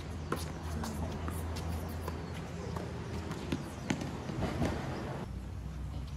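Tennis rally on a hard court: a few sharp knocks of the ball being struck and bouncing, with quick footsteps on the court surface, over a steady low hum.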